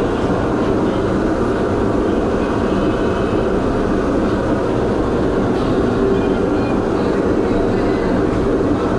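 Steady, loud rumbling background noise that holds even throughout, with no distinct knocks or tones.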